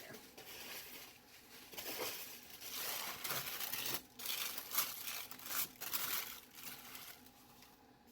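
Packaging crinkling and rustling in uneven surges as a handmade journal is unwrapped by hand, dying down near the end.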